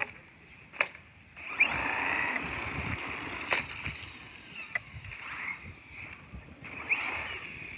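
Electric RC car driving on the road: its motor whines and rises in pitch as it speeds up, twice, over the hiss of tyres on grit, with a few sharp knocks.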